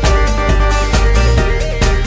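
Electronic background music with a steady, fast beat and a melody over it.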